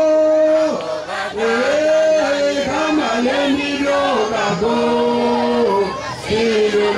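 Church vocal group singing a hymn in harmony, voices holding long notes and moving together between pitches, with short breaths between phrases about a second in and near the end.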